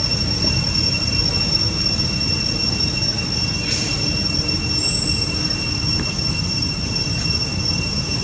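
Steady outdoor drone: a constant high-pitched insect whine over a low rumbling noise, with a faint short chirp about five seconds in.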